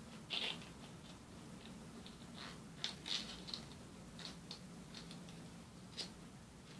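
Origami paper crinkling and crackling in the fingers as it is folded and creased, in short, irregular crackles with a cluster around the middle, over a faint steady low hum.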